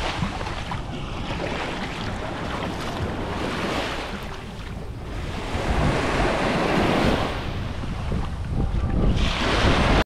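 Surf washing onto a beach, swelling and falling with each wave, with wind noise on the microphone.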